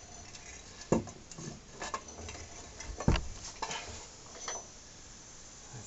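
Scattered metallic clicks and knocks from a socket and breaker bar working the transmission main drive gear nut off a 2006 Harley-Davidson Dyna, the loudest knock about three seconds in. The nut comes off crunchy rather than smoothly.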